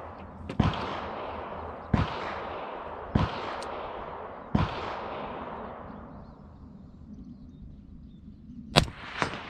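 AR-15-style rifle firing single shots, four about a second and a half apart, each trailing off in a long rolling echo. After a pause, a fifth and loudest shot comes near the end, followed half a second later by a fainter crack.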